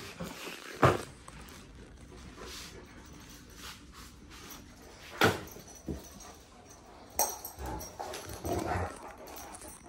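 Two year-old Kangal dogs play-fighting: scuffling with short sounds from the dogs. Two sharp, loud sounds stand out, about a second in and about five seconds in, and a busier run of shorter sounds follows near the end.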